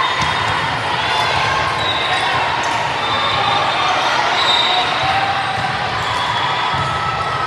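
Gym sound during a junior volleyball match: ball bounces and hits over a steady chatter of players' and spectators' voices.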